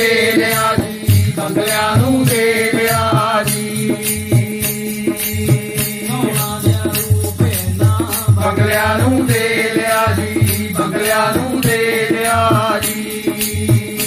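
Men singing a Punjabi devotional chant to a plucked one-string tumba, with a quick, even percussion beat running under the voices.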